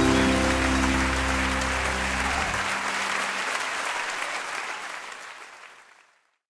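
Concert audience applauding while the band's final chord rings out and ends about three seconds in; the applause then fades away to silence near the end.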